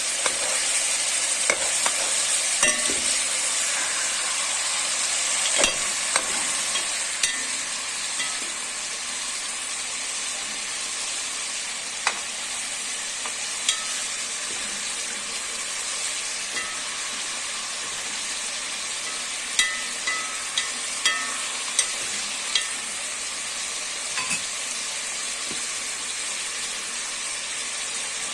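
Chunks of beef sizzling steadily as they fry and brown in rendered beef fat. A few sharp clicks come over the sizzle, several of them close together about twenty seconds in.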